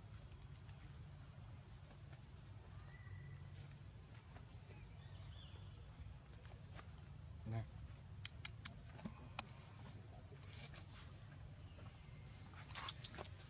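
Faint, steady high-pitched insect chirring at two pitches over a low rumble, with a thump about halfway through and a few sharp clicks after it.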